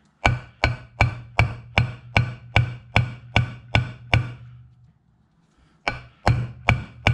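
Hammer blows driving a check ball into a TH400 transmission's aluminium valve body during a shift-kit modification. There are about eleven even, ringing strikes at roughly two and a half a second, a pause of over a second, then four more strikes.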